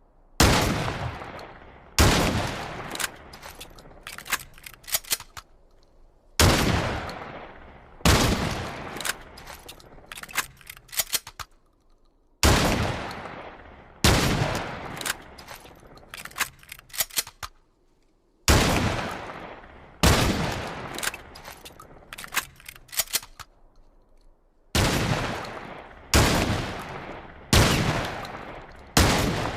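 Shotgun sound effect: loud shotgun blasts, each with a long fading tail, mostly in pairs about two seconds apart, each pair followed by a quick run of sharp clicks. The sequence repeats about every six seconds.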